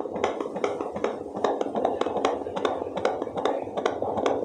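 Home fetal Doppler picking up a 19-week fetus's heartbeat: a loud, fast, even pulse of whooshing beats, about four a second, like a galloping horse.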